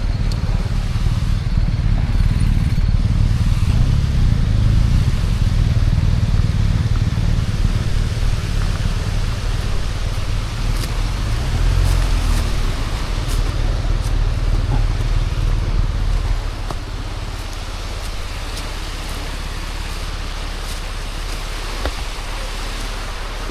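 Adventure motorcycle being ridden, with a steady low engine and wind rumble on the microphone that eases a little about two-thirds of the way through.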